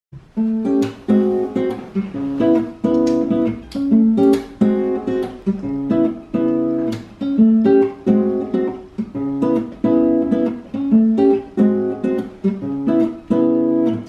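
Acoustic guitar strumming chords in a steady rhythm, the song's instrumental intro before the singing comes in.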